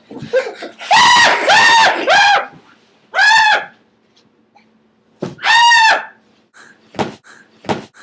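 High-pitched vocal shrieks made as a weird-noise imitation, five of them, each rising and then falling in pitch: three in quick succession, then two more spaced apart. A couple of sharp clicks follow near the end.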